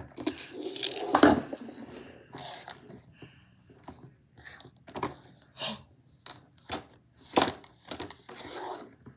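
Small hard plastic toy pieces being handled: a string of irregular clicks, knocks and short rattles.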